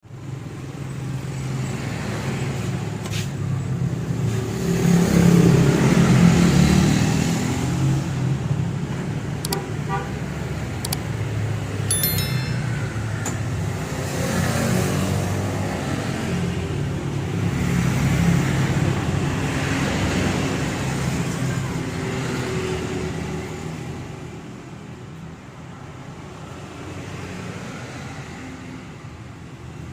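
Road traffic: motor vehicles passing, their noise swelling and fading, with a few light clicks.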